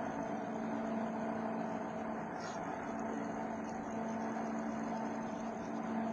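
A motor running steadily, a constant hum with a high whine over it that does not change in speed, and a brief falling high squeal about two and a half seconds in.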